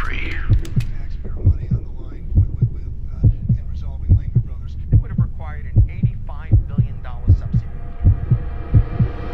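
Trailer sound design: a slow heartbeat effect, its beats in lub-dub pairs a little under once a second, over a low steady hum. Faint wavering electronic tones come in around the middle, and a rising hiss begins to swell near the end.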